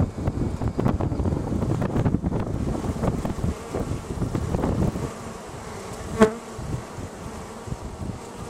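A honeybee colony buzzing close to the microphone, loudest and densest for the first five seconds, then thinner, with one short, higher-pitched buzz about six seconds in.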